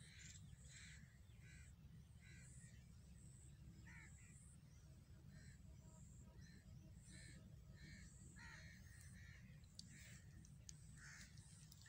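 Faint outdoor birdsong: many short bird calls repeating throughout, over a low steady rumble.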